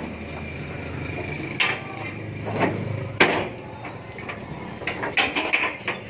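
Scattered knocks and clatter of goats being handled and loaded onto a vehicle, several sharp knocks with the loudest about three seconds in and a quick cluster near the end, over a low steady hum that fades about halfway through.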